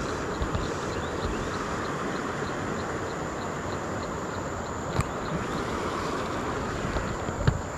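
Steady rush of moving creek water and wind on the microphone, with a faint quick ticking in the first few seconds and two sharp knocks, one about five seconds in and a louder one near the end.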